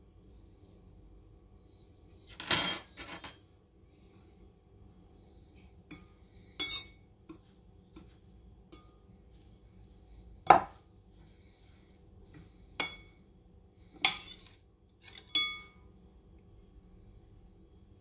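A metal fork and spoon clinking against a glass bowl and a cooking pot while sticky cakes are rolled in coconut. The clinks come singly or in pairs, about ten in all, each with a short ring, at irregular intervals.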